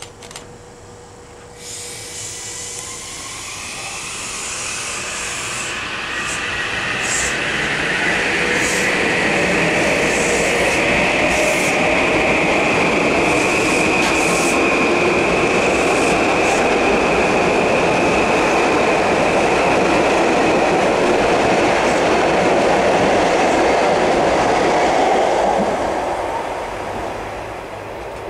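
Metro-North M8 electric multiple-unit train running through the station at speed without stopping. Wheel and rail noise builds over several seconds as it approaches, stays loud while the cars go by, and fades near the end. A steady high whine runs through it, and sharp clicks come as it arrives.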